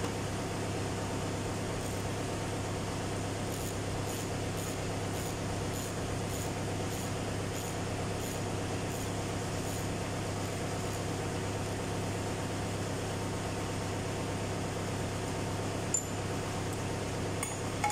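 Steady mechanical hum of workshop machinery. From about four seconds in, a run of faint, evenly spaced ticks comes about twice a second for several seconds, and two short sharp metal clicks come near the end.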